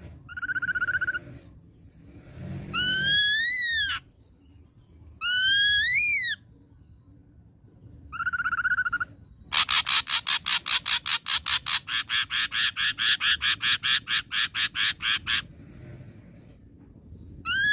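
Ashy drongo singing a varied phrase sequence: short buzzy trills, loud whistles that sweep up and then drop, and a long run of rapid repeated notes at about five a second for some six seconds.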